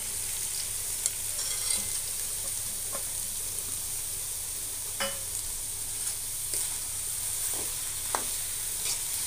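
Potato and masala frying in oil in a kadai, sizzling steadily as sprouted mixed beans are tipped in and stirred. A metal ladle knocks and scrapes against the pan a handful of times.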